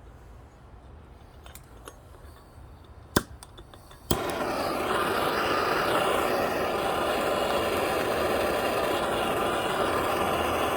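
A couple of sharp clicks, then about four seconds in a soldering torch lights and burns with a steady loud hiss while heating copper joints on a shower valve.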